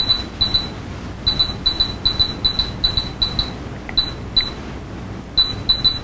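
Short high-pitched electronic beeps, often in quick pairs, come and go irregularly as a strong magnet is swept across a metal-face inductive proximity sensor. Each beep marks the sensor switching on: it is being false-tripped by the magnetic field that stands in for a weld field.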